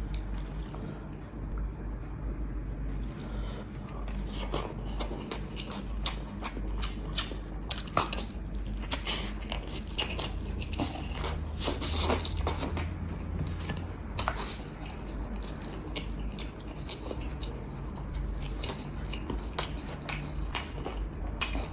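Close-miked eating: wet chewing and lip smacking, with irregular sharp smacks, over a steady low hum.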